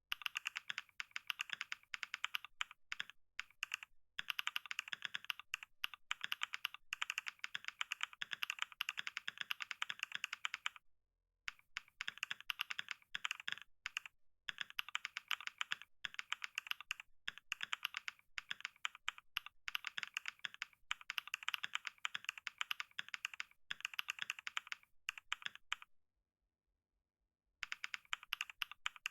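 Fast typing on a computer keyboard: a dense, rapid run of key clicks, breaking off briefly about eleven seconds in and for a second or two near the end.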